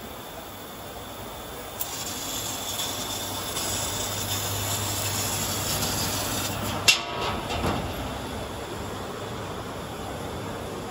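A 1500 W fiber laser cutting machine cutting a mild steel plate: a steady hiss of cutting gas and sparks at the nozzle, with a low hum. It grows louder about two seconds in and stops with a sharp click about seven seconds in, leaving a quieter steady machine noise.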